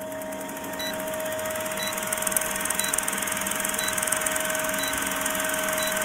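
Film-projector countdown leader sound effect: a steady rapid mechanical rattle and whir with a constant hum, and a short high blip about once a second marking each number of the countdown.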